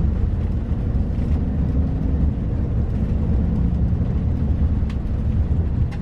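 Campervan driving on a dirt road: a steady low rumble of engine and tyres, heard from inside the cabin.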